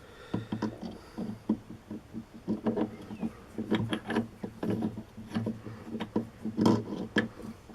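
Irregular clicks and knocks of small metal parts and tools being handled and set down, several close together, the loudest near the end.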